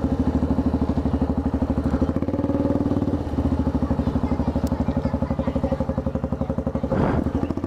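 Motorcycle with a loud exhaust idling, a steady rapid pulsing beat.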